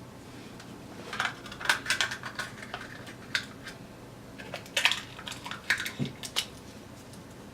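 Kitchen utensils clinking and scraping against dishes while spreads are handled: a run of irregular light clicks and clinks.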